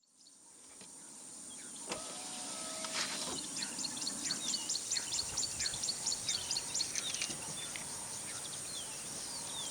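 Birds calling in the bush: rapid repeated high chirps, about three a second, with scattered falling whistles, over a steady high-pitched drone. A brief whirring sound with a few clicks comes about two to three seconds in, as the sound fades up.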